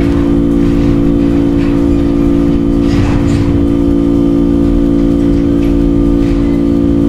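A steady mechanical hum of several fixed tones, unchanging throughout, with a few faint light clicks of handling about three seconds in.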